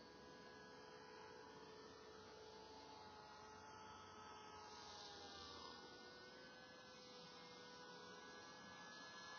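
Faint, distant whine of a radio-controlled model aircraft's motor: a few steady tones, one dipping slightly in pitch about halfway through.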